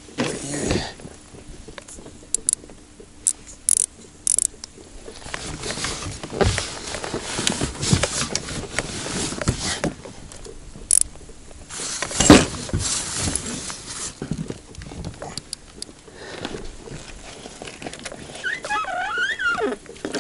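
Irregular splashing and knocking as a hooked pike thrashes at the surface beside an inflatable boat while the landing net is worked in the water, with a few sharp clicks along the way.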